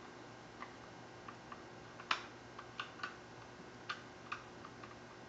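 Light clicks and taps of parts being handled and fitted while reassembling a Daisy 880 air rifle. They come in an irregular scatter, the sharpest about two seconds in.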